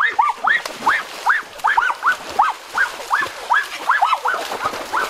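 Rapid high-pitched animal yelps, about three a second, each call rising and falling in pitch, going on without a break.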